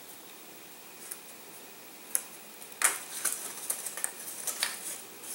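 Small sharp clicks and snaps of thin laser-cut wood parts being popped out of their sheet and handled: a couple of single snaps about two seconds in, then a quick run of small ticks and cracks.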